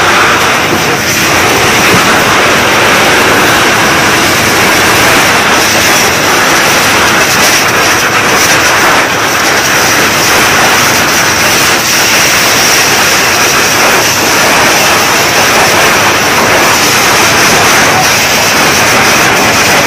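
Fire hose nozzle spraying a strong water stream, a loud steady rushing hiss.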